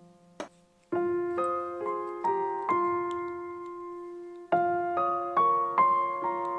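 Background piano music: a gentle melody of decaying notes that pauses briefly and resumes about a second in, with a new phrase about four and a half seconds in. A single short click sounds in the pause.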